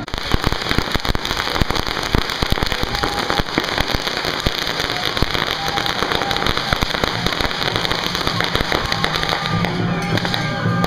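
A string of firecrackers going off in rapid, continuous crackling bangs. It starts abruptly and thins out near the end, with music underneath.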